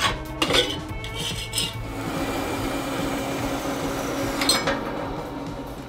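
Sharp metal clanks and scraping from steel being handled and clamped at a horizontal metal-cutting bandsaw, with a few loud knocks near the start and another about four and a half seconds in, under background music.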